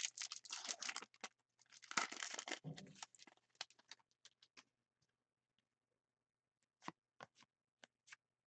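A foil trading-card pack being torn open and crinkled. Then a few scattered light clicks as the cards are handled.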